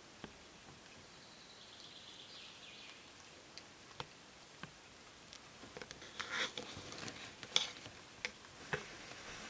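Wild boar piglets slurping and splashing at a muddy puddle: faint, scattered wet clicks and smacks that grow busier about six seconds in.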